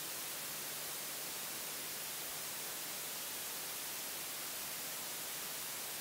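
Steady hiss, brightest in the treble, with a faint low hum underneath. No calls or drumming are heard.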